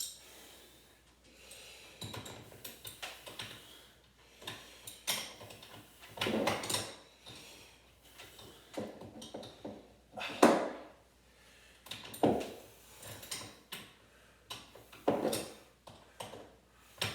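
Irregular clanks and knocks of hand tools and bolts being handled during work on garage door hardware, with the loudest knock about ten seconds in.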